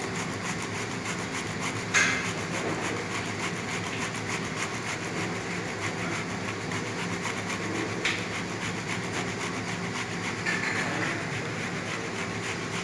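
A whole tomato rubbed back and forth on a handheld grater, a steady wet rasping as the second tomato is grated for a döner marinade. A couple of sharp knocks cut in, about two and eight seconds in.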